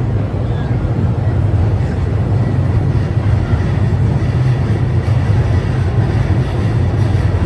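Steady low rumble of city noise, with no distinct events standing out.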